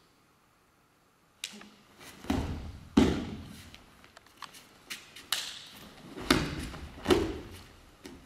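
Bodies and hands hitting tatami mats as jujutsu throws are taken: about six thuds and slaps, starting about a second and a half in, the loudest about three seconds in.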